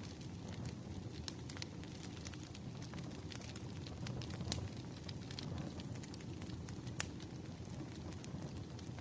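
Wood fire burning, a steady low rumble of flames with frequent irregular crackles and small pops of burning logs, one sharper pop about seven seconds in.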